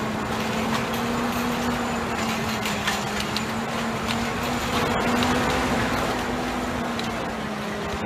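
A tractor's diesel engine running steadily under load as it pulls a KIRPY BSC 250 stone crusher through rubble, a continuous hum with scattered sharp clicks and cracks over it.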